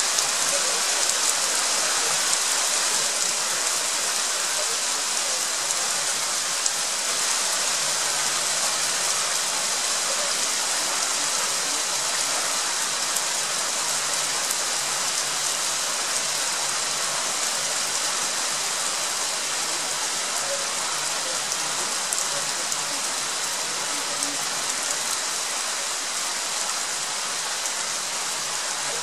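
Heavy spring rain shower falling steadily, a dense hiss of drops on roofs, road and plants, easing a little toward the end.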